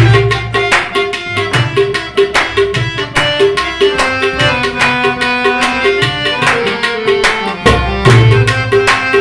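Harmonium playing a melody in held notes over a steady tabla rhythm, with deep bass tabla strokes at the start and again near the end.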